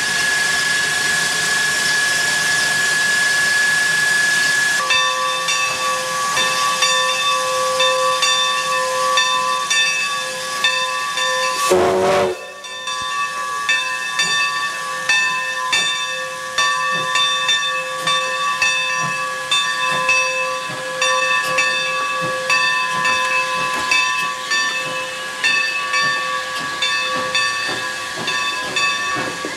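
Skunk Train steam locomotive venting steam: a loud hiss with a steady whistling tone. About five seconds in, it is joined by a chord of steady tones over a regular beat of short puffs.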